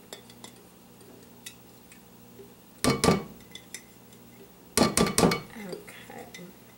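Glass mason jar knocked against the rim of a plastic strainer to shake out the last kefir grains. A few faint clinks, then a quick cluster of sharp knocks about three seconds in and a longer run of knocks about two seconds later.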